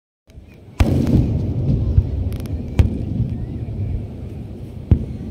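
Fireworks exploding: a loud bang about a second in sets off a continuous low rumble. Further sharp bangs come at intervals, with a brief crackle.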